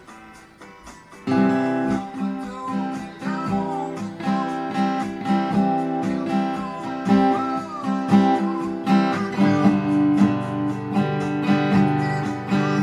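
Acoustic guitar strummed in the key of C along with a recorded rock song with a singing voice. The music comes in loudly about a second in, after a quiet start.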